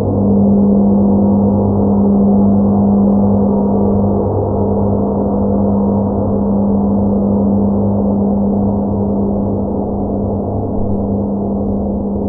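Large hanging gong ringing on after a strike: a strong low hum with many higher tones over it, slowly fading, with a slight swell near the end.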